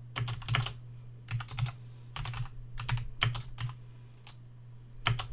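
Typing on a computer keyboard: several quick runs of keystrokes with short pauses between them, the longest pause shortly before a last quick run near the end.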